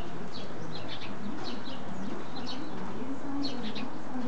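Small birds chirping over and over, with a low, soft, wavering coo of a pigeon, over a steady background hiss.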